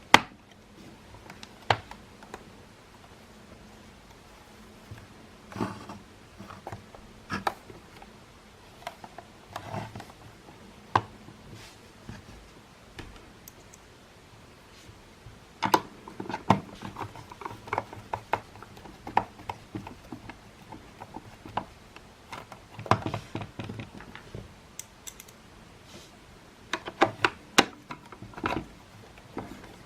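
Plastic housing parts and small tools handled while a Makita CL108FD cordless vacuum cleaner is worked on by hand, with scattered clicks, knocks and light rattles. There is a sharp click at the very start, and the clicks come thicker in several short clusters later on. The vacuum's motor does not run.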